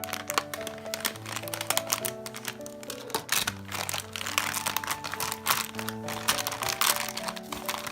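Background piano music, with the crinkling and crackling of packaging being handled and torn open.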